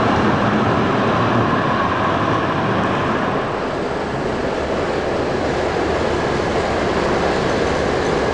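Trams running on street track, a steady rolling noise of steel wheels on rails. First an SGP E1 motor car with its C3 trailer pulls away. About a third of the way in the sound shifts as a Tatra KT8D5 articulated tram comes past close by.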